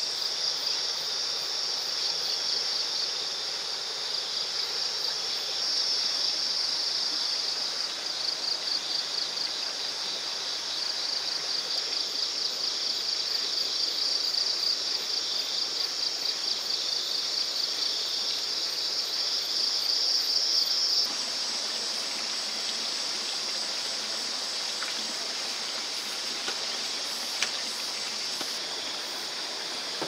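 A chorus of insects trilling, high-pitched and pulsing, over a steady rush of flowing water. About two-thirds of the way through, the pulsing trill gives way to a steadier, even insect hum.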